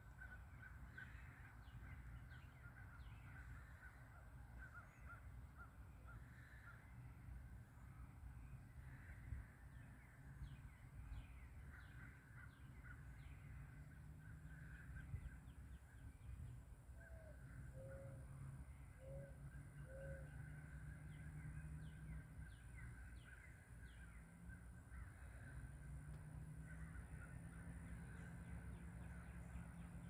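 Faint birds calling in the trees: quick high chirps scattered throughout, and four short low calls about a second apart a little past the middle, over a low steady hum.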